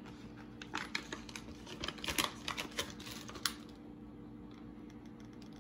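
A paper wax-melt bag being handled, giving a run of light clicks and crinkles that stops about three and a half seconds in, over a faint steady hum.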